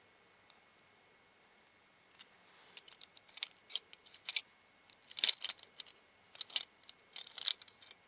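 Small plastic parts of a disassembled Astro Switch toy clicking and scraping as they are handled and worked loose by hand. Scattered clicks start about two seconds in and come in clusters, the loudest about five seconds in.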